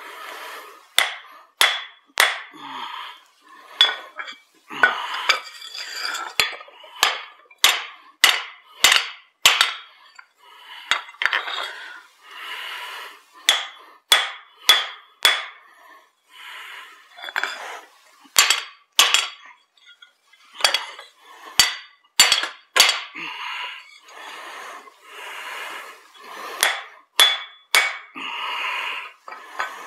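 Hand hammer striking hot steel on an anvil, driving a drift through the eye of a forged broad axe. The blows come in quick runs with short pauses, each with a bright metallic ring.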